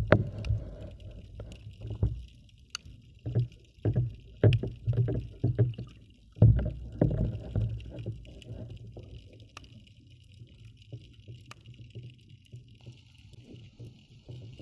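Water moving around a submerged camera: muffled sloshing and thuds in uneven surges, loudest in the first half, with scattered sharp clicks and a faint steady high hiss.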